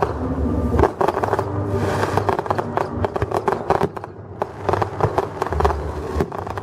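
Fireworks crackling: many sharp pops in quick, uneven succession over a low rumble.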